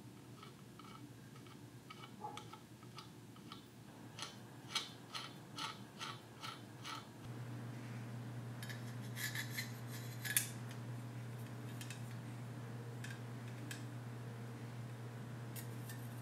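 Light metallic clicks and clinks of small metal parts being handled, about two a second for the first several seconds. About seven seconds in a low steady hum comes on, with a further quick cluster of clicks over it and a few single clicks later.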